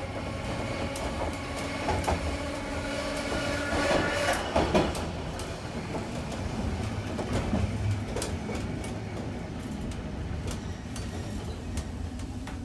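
Keifuku Electric Railroad (Randen) tram running along the track, heard from inside the car: a steady low rumble with clicks of the wheels over the rail, and a high whine from about two to five seconds in.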